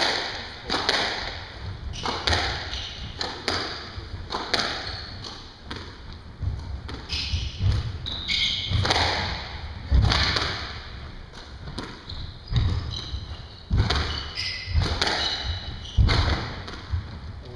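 Squash rally: the ball cracks off the rackets and smacks into the walls, sharp hits about once a second, each ringing briefly. Court shoes squeak on the wooden floor in short stretches, most around the middle and a little later.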